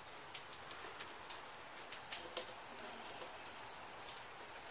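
A brush scrubbing dirt off a lawn mower engine's air cleaner housing: faint, irregular scratchy ticks over a light hiss.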